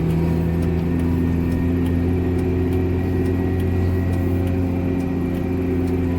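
Farm tractor engine running steadily at a constant pitch while pulling a chop box (forage wagon) through a harvested cornfield.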